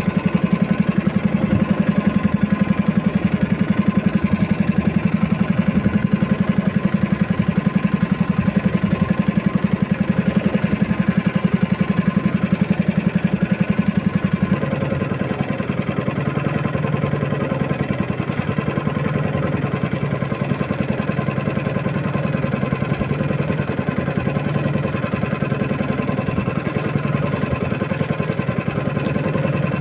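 A small fishing boat's engine running steadily. About halfway through it is throttled back: it gets a little quieter and drops to a lower pitch, then runs on.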